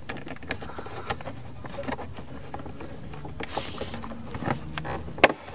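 Plastic trim-removal tool scraping and prying under the edge of a car dashboard speaker grille, with small scattered plastic clicks and ticks as the tight grille is worked loose and a sharper click near the end.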